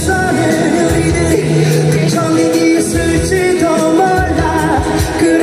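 Live band music: a male singer singing into a microphone over electric guitar and a steady beat.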